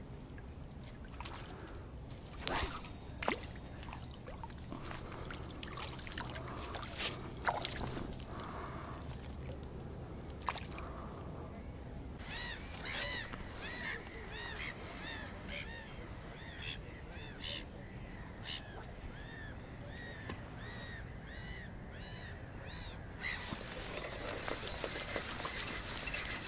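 A bird calls over a reed-fringed reservoir, repeating short rising-and-falling notes two or three times a second for about ten seconds in the middle. A few sharp knocks of fishing tackle being handled come earlier, and a soft hiss rises near the end.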